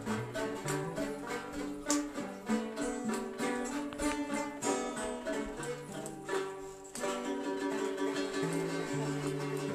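Folk music played on plucked string instruments, including a phin lute: a quick, rhythmic melody of plucked notes over sustained low notes.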